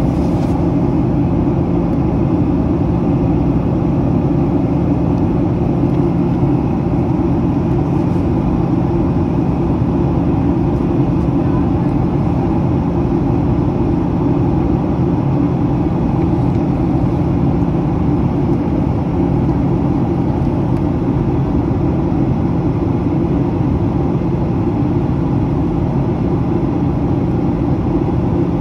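Steady in-flight cabin drone of a Boeing 737, heard from a forward window seat: engine and airflow noise with a constant low hum, unchanging throughout.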